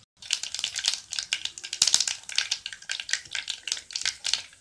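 Mustard seeds popping and spluttering in hot coconut oil in a pan: a dense, irregular run of sharp crackles that starts just after a brief gap. The popping is the sign that the oil is hot enough for tempering.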